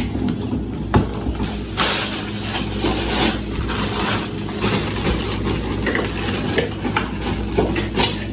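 Steady low hum with rustling and several sharp knocks, the sound of grocery packages being handled and set down.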